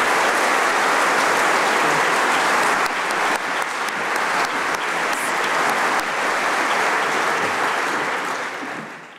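Audience applauding, steady and dense, easing off slightly about three seconds in and fading out at the very end.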